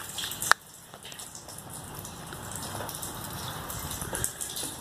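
Water drops pattering steadily, like light rain, with a sharp click about half a second in.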